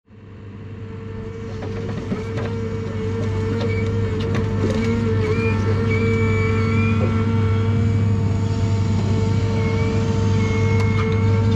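John Deere 1010G forwarder's diesel engine and crane hydraulics running steadily, heard from inside the cab while the grapple swings a load of spruce logs over the bunk. A steady whine sits over the engine's hum, with a few light clicks, and the level rises over the first few seconds.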